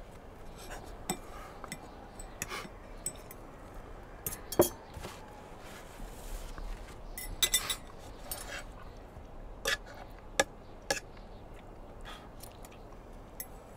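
Scattered small clinks and knocks of glasses and tableware being handled on a table, irregular and spaced out, with one sharper knock about four and a half seconds in.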